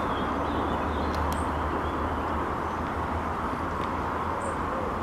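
Steady outdoor background noise with a constant low rumble, and a few faint ticks about a second in and again near the end.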